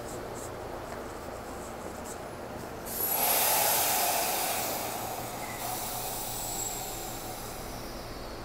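Stopped subway train at the platform letting off a sudden loud hiss of compressed air about three seconds in, which fades away over the next few seconds over a steady low station hum.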